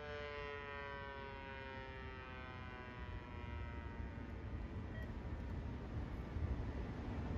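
Federal Signal Thunderbolt 1000 civil defense siren winding down: its tone glides steadily lower and fades out over about three seconds, leaving only a low rumble.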